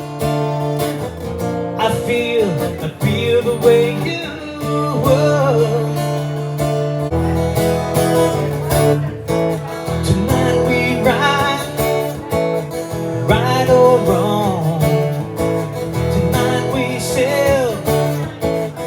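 Strummed acoustic guitar with a sliding melody line over the chords.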